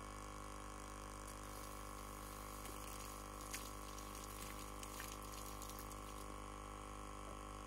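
Faint running water and a steady hum as dishes are washed and rinsed from a hose, with a few light clinks of dishes.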